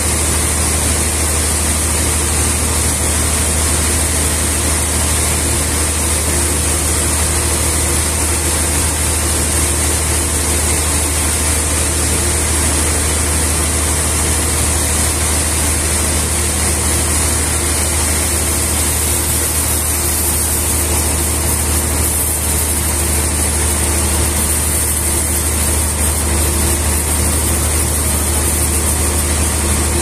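A large band sawmill runs steadily as its blade saws through a massive trembesi (rain tree) log, giving an even low hum with a high hiss over it.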